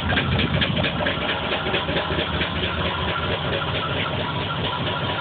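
Car engine idling roughly with an uneven, stumbling pulse, the sign of a misfire that the scanner logs as a P0300 random-misfire code, with the exhaust and muffler shaking violently. The spark plugs come out black and smelling of gas.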